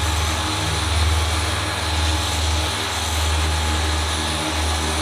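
Steady aircraft noise on the flight line: a continuous low drone under an even rushing noise, with a faint steady whine above it.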